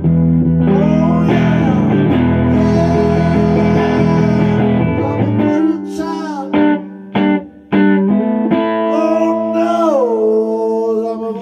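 A man singing live to his own white Les Paul-style electric guitar, with held sung notes over strummed chords. About halfway through the guitar plays short, stopped chords with brief gaps between them.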